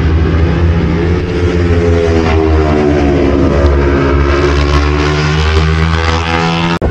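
Superbike racing motorcycles running at high revs around the circuit, their engine pitch rising and falling as the bikes go by. The sound cuts off abruptly near the end.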